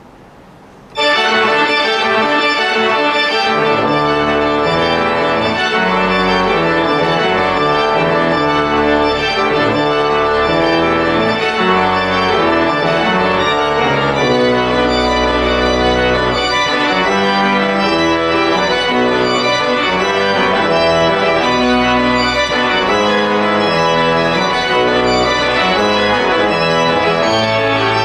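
Organ music: full sustained chords that start abruptly about a second in, with a low bass line joining a few seconds later and the chords changing throughout.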